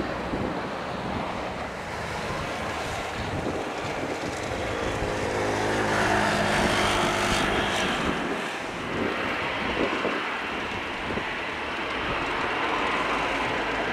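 Boeing 737-800's CFM56-7B jet engines running at taxi power as the airliner turns, with a whine that swells about halfway through as the engine intakes swing toward the listener, then eases. Wind rumbles on the microphone underneath.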